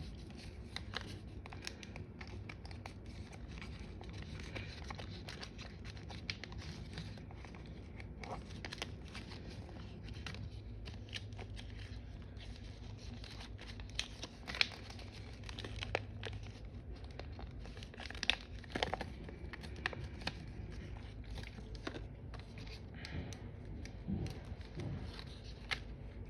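Paper rustling and crinkling as an origami model is handled and shaped by hand, with scattered soft clicks and taps, over a faint steady hum.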